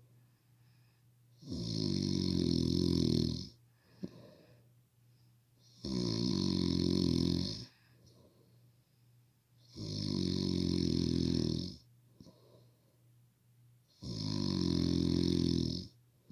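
Heavy snoring from a sleeper: four long snores of about two seconds each, coming about every four seconds, with quiet between them.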